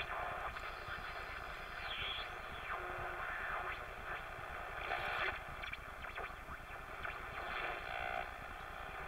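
Jefferson-Travis pocket transistor radio being tuned across the AM band: static and hiss from its small speaker, with a high whistle that drops in pitch about two seconds in and a brief louder burst about five seconds in as the dial passes between stations.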